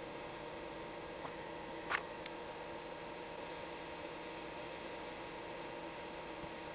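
Steady hiss with an electrical hum from repair-bench equipment, with one short faint squeak-like sound about two seconds in.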